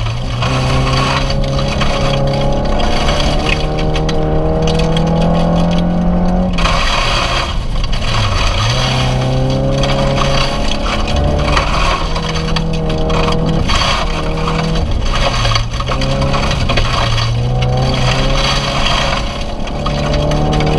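Rally car engine driven hard on a gravel stage, heard from inside the cabin: the engine note climbs through the revs and drops sharply several times at gear changes and lifts for corners. Gravel hiss from the tyres and stones rattling against the underside run beneath it.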